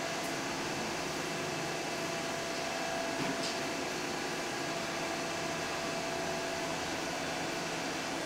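A steady machine hum with a faint whir, like a fan or kitchen appliance running, holding one level throughout. There is one faint light tick about three and a half seconds in.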